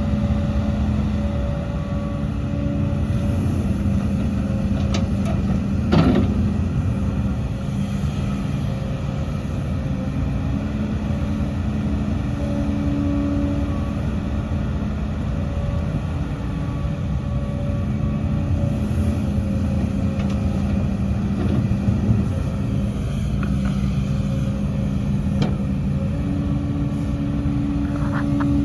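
Diesel engine of a Hidromek HMK 230LC excavator running steadily under working load, its tone dipping and rising a little. One sharp knock about six seconds in.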